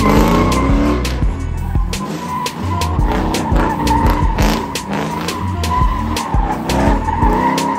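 LS V8-swapped Nissan 240SX drifting: the engine revs up again and again while the rear tyres squeal steadily as they spin and slide. Music plays underneath.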